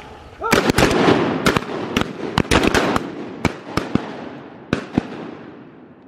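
Volley of shotgun shots from a line of duck hunters: a rapid cluster of blasts about half a second in, then more shots spreading out over the next few seconds, well over a dozen in all.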